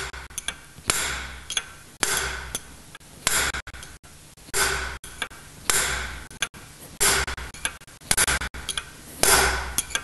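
Hammer striking a steel punch set on the inner race of a tapered roller bearing, driving the bearing down the pinion gear shaft. Sharp metallic strikes come about once a second, each ringing briefly, with the punch moved from side to side.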